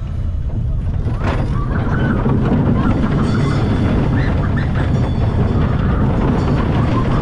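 Vekoma junior roller coaster train rolling over the crest of the lift hill and down the first drop: a steady rumble of wheels on steel track that grows louder about a second or two in as the train picks up speed.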